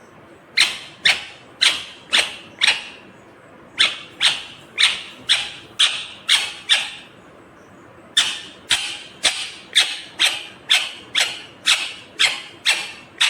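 Indian ringneck parrot (rose-ringed parakeet) giving short, loud calls in quick series, about two a second. The calls come in three runs of five, seven and about eleven, with short pauses between them.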